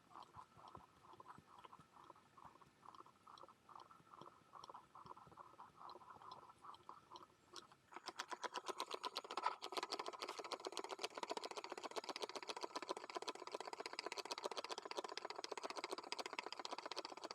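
A cat butt-patting machine tapping rhythmically, about three soft pats a second. About eight seconds in it switches to much faster, louder rapid patting.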